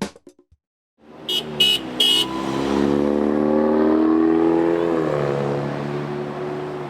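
Road traffic: three short high horn toots about a second in, then a vehicle drives by, its engine note climbing slowly and then dropping as it passes.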